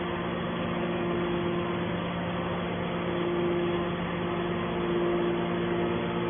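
Hydraulic scrap baler's power unit, electric motor and hydraulic pump, running with a steady hum; a higher tone in it swells and fades a few times.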